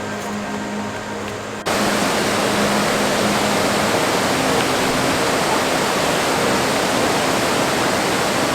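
Music with held notes, cut off suddenly about one and a half seconds in by the loud, steady rush of Elk River Falls, a large waterfall.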